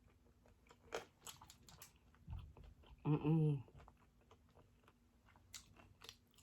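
Close-up chewing and biting of food: scattered wet mouth clicks and smacks, with a short hummed "mm" of enjoyment about three seconds in.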